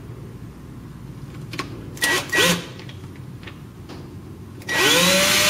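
Power drill boring a small pilot hole into a wooden board: a short burst of the motor spinning up about two seconds in, then near the end the drill spins up and runs steadily.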